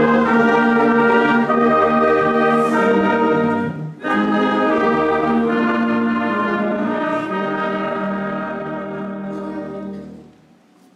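Brass ensemble playing slow, held chords in two phrases, with a short break about four seconds in; the second phrase fades away near the end.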